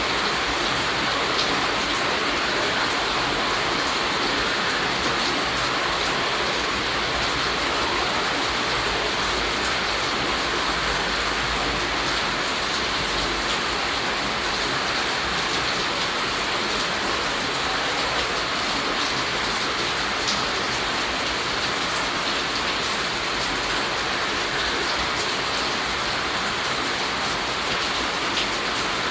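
Steady rainfall, a dense even hiss of drops with faint scattered ticks of individual drops hitting a surface.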